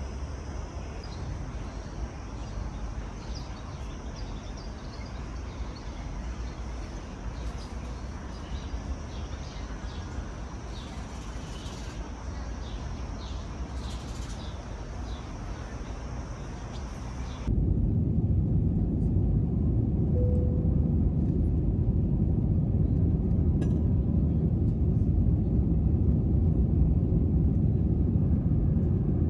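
Outdoor ambience with birds chirping over a steady background hum. About two-thirds through it cuts to a louder, steady low rumble of a vehicle in motion heard from inside.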